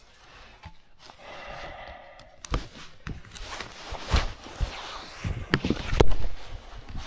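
Shovel digging into the ground over a detector target: scraping, then a run of dull thuds and knocks, the heaviest blow about six seconds in.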